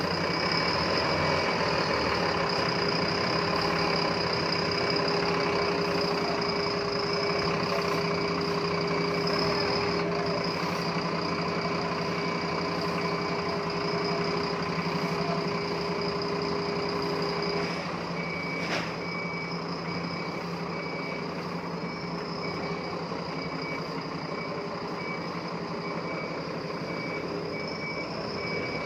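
A bus running, heard as a steady engine and road hum, with a faint high beeping that repeats evenly through much of it. A slightly lower tone in the hum drops out just past halfway.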